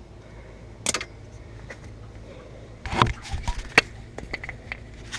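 Handling clatter of small metal objects: one sharp click about a second in, then a run of irregular light clicks and a dull knock around three to four seconds in, over a faint steady low hum.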